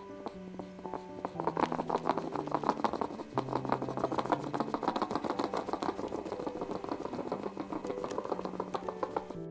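Rapid, irregular clicking or pattering, many clicks a second, from about a second in, over soft background music of slow held notes.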